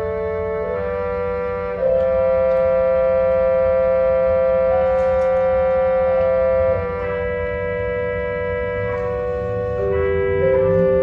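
Church organ playing slow, sustained chords, with the notes changing every few seconds. It swells louder about two seconds in and eases back several seconds later.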